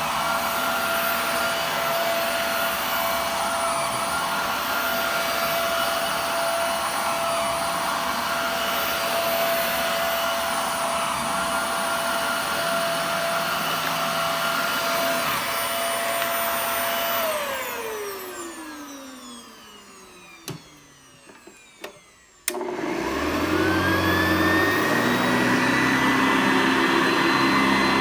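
Upright vacuum cleaner running with a steady whine, then switched off about 17 seconds in, its motor winding down in a falling pitch. A few small clicks follow, then another vacuum comes on with a sharp click and its motor spins up in a rising whine to a steady, higher-pitched run.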